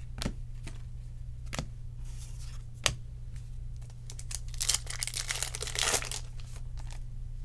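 A foil trading-card pack wrapper being torn open and crinkled, loudest in a burst of crackling about two-thirds of the way in. Earlier there are a few sharp clicks as cards are handled.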